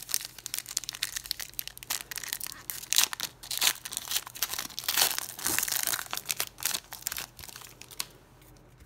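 Foil wrappers of Panini Prizm football card packs crinkling and tearing as they are opened by hand: a dense run of sharp crackles that dies away near the end.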